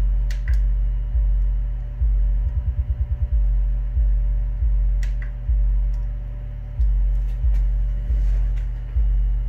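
A steady low 50 Hz test tone driven through the Elektra α1100.5 amplifier's sub channel into 4 ohms while its power is measured. The tone jumps up in level every half second to a second or so as the output is run up, with a quick fluttering pulse about two and a half seconds in.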